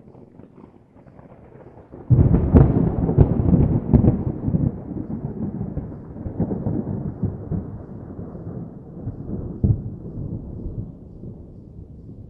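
Thunder: a low rumble, then about two seconds in a sudden loud crack that rolls into a long rumble, slowly fading, with another sharp clap about ten seconds in.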